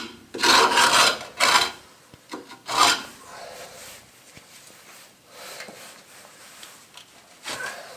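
Rust and grime being scraped off a car's rear drum brake assembly: a few harsh scraping strokes in the first three seconds, fainter scraping after, and one more stroke near the end.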